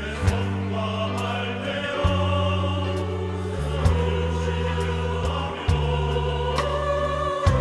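A church choir singing an anthem with instrumental accompaniment. Held low bass notes change about every two seconds, each change marked by a short accent.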